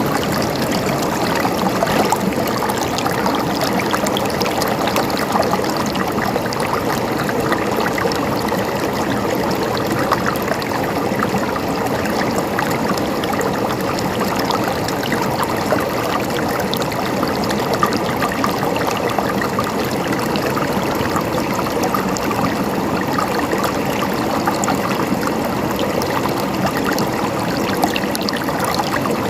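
River water flowing, a steady rushing with many small splashes and trickles throughout.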